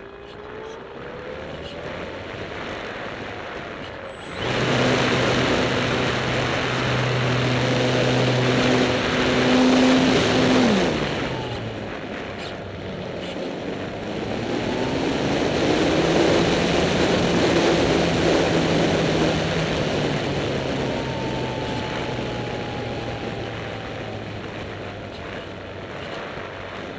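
Electric motor and propeller of an Apprentice S 15e model airplane, heard from a camera on its wing under a loud rush of air. The motor throttles up suddenly about four seconds in, its pitch drops away around eleven seconds, then it comes back and slowly fades.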